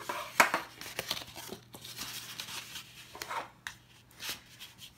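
Plastic bone folder scraping along creased card stock in a run of short, irregular strokes, burnishing the score lines flat, with the card rustling as it is handled.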